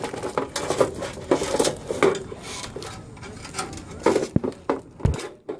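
Irregular handling noise: a run of small knocks, clicks and rustles as objects are picked up and moved.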